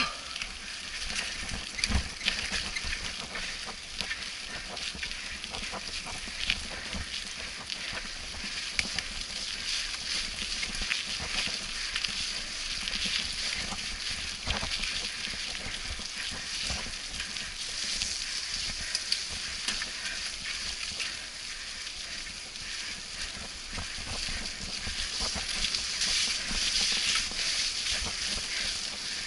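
Bicycle tyres rolling over a wet, muddy dirt trail, a steady hiss of wet ground and spray, broken by scattered knocks as the bike goes over bumps, with a sharp one about two seconds in.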